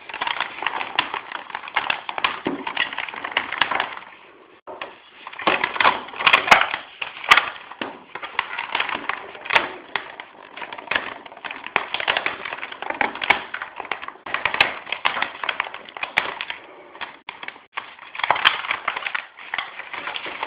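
Close handling noise of the mount's material being bent and worked by hand: a dense, irregular stream of crackling and clicking, with a brief lull about four seconds in.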